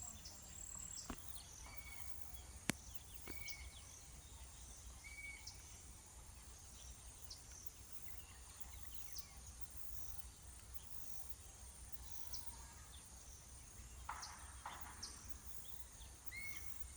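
Outdoor nature ambience: a steady, high-pitched insect drone with a few short, faint bird chirps and whistles scattered through it.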